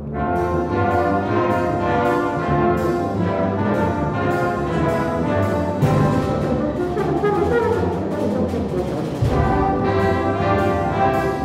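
A full concert wind band playing loudly, brass to the fore, coming in at full strength at the start. Regular sharp percussion strokes keep a beat, with deep drum strokes about six and nine seconds in.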